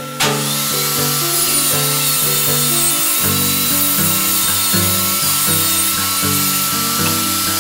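Benchtop table saw cutting a plywood sheet: the motor's steady whine, joined about a quarter second in by the loud hiss of the blade biting into the wood, which carries on steadily. Background blues music plays underneath.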